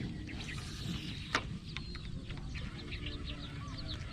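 Small birds chirping and twittering in many short calls over a low steady rumble, with one sharp click a little over a second in.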